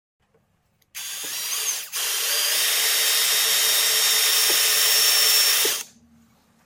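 Power drill boring a centre hole into the end grain of an octagonal softwood blank. It starts about a second in, dips briefly, then runs steadily for about four seconds and stops.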